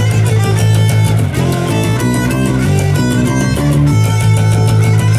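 Loud crust-punk band music: a bass guitar playing low notes that change every second or so, with guitar over a fast, steady drum beat.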